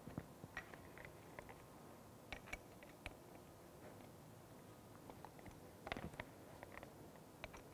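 Faint, scattered clicks and taps of a drill bit being fitted into a corded electric drill's chuck and the chuck being turned by hand, a small cluster of them about six seconds in, against near silence.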